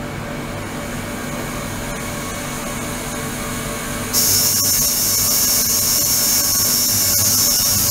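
A steady electrical machine hum with hiss. About four seconds in, a loud high-pitched hiss switches on abruptly and stays steady.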